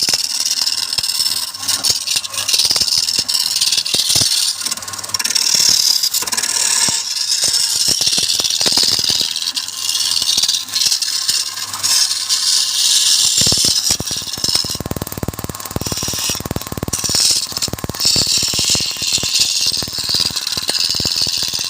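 Wood lathe turning, with a cutting tool scraping a spinning wood blank: a steady high hiss full of rapid clicks. About two-thirds of the way through, the clicking becomes a dense rattle.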